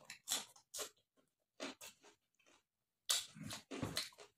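Close-miked chewing of a mouthful of rice, pork and green chilli: short, separate wet chews in the first two seconds, a brief pause, then a quicker run of chews from about three seconds in.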